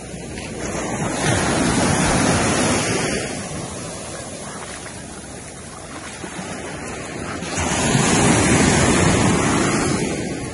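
Waves breaking and washing on the shore, two swells of surf about six seconds apart over a steady background wash.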